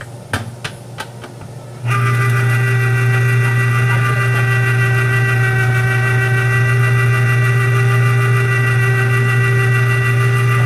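Electric citrus juicer's motor starting about two seconds in and running steadily, spinning the reamer cone under a pressed citrus half: a loud low hum with a steady whine on top. A few light clicks come just before it starts.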